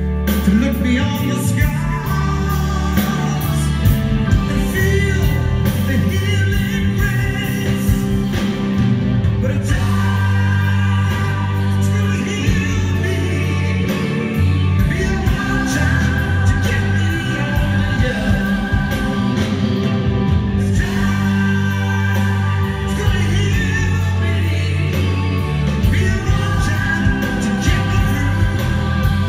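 Live rock band playing a song: steady bass and drums under keyboards, with a long, held melodic lead line over the top.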